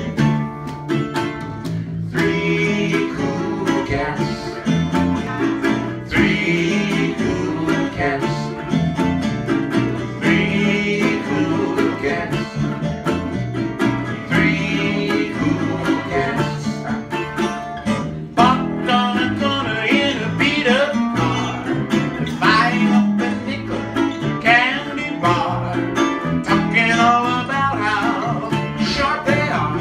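Small acoustic swing trio playing live: resophonic ukulele, acoustic guitar and acoustic bass guitar, with a steady walking bass line and a man singing lead.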